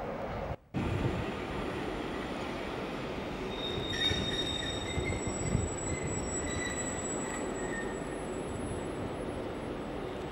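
Slow-moving train rumbling through the station. From about four seconds in, its wheels squeal in several high, wavering tones. The sound drops out briefly about half a second in.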